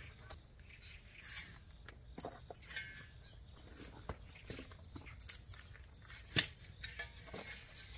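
Grass insects chirring in a steady high drone, with scattered light clicks and rustles like footsteps in dry ground cover. A sharp click a little over six seconds in is the loudest sound.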